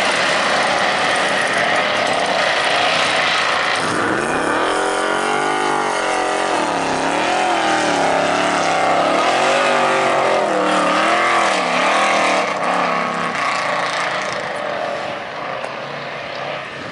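Dirt short-course race car engine running hard, its pitch rising and falling again and again as the throttle comes on and off; the first few seconds are a dense noisy roar, and the sound eases off near the end.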